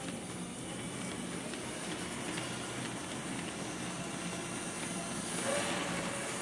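H0-scale model freight train of covered goods wagons rolling past on the track: a steady rumble with faint clicking. A louder hiss rises near the end.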